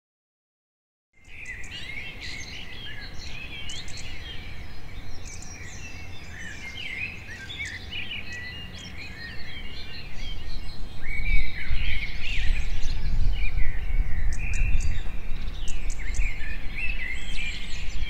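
Wild songbirds chirping and singing, several at once in overlapping calls and trills, starting after about a second of silence. A low background rumble grows louder about ten seconds in.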